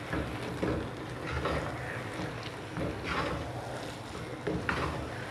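Wooden spatula stirring and scraping thick semolina halwa around a non-stick wok in irregular strokes over a low steady rumble, folding in sliced nuts at the end of cooking, when the halwa has thickened and begun to leave the sides of the pan.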